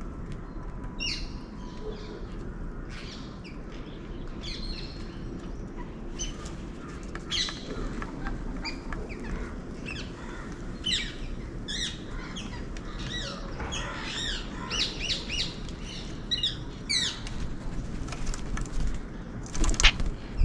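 Birds chirping: many short, high calls scattered throughout, over steady outdoor background noise. A brief loud rustle comes near the end.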